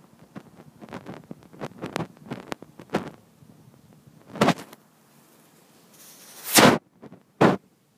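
Irregular short knocks and clicks, with a louder knock about four and a half seconds in, a brief rush ending in a loud thump near the end, and one more knock just after.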